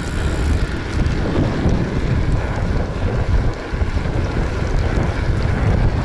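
Wind buffeting the microphone of a camera on the handlebars of a bicycle moving at speed: a steady, loud, low rumble of rushing air.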